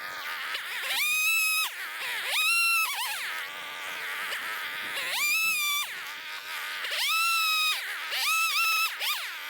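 Two-stroke chainsaw revving up to full throttle and dropping back, about five times, each a short high whine lasting under a second as it cuts through small pieces of firewood.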